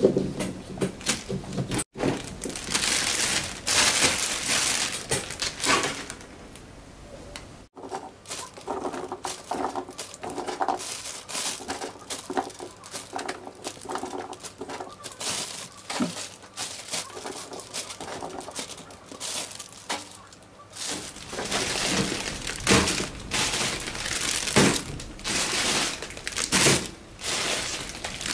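Thin plastic bags crinkling and rustling as green ume plums are scooped into them by hand, with short knocks of the firm fruit against each other, in irregular bursts.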